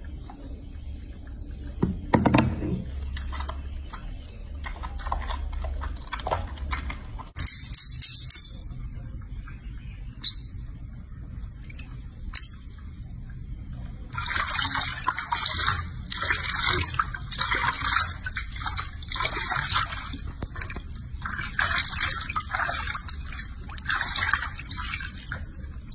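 Water splashing and sloshing in a washbasin as a baby monkey is scrubbed and washed, with a few sharp knocks. From about fourteen seconds in, the tap runs and its stream splashes over the monkey into the basin.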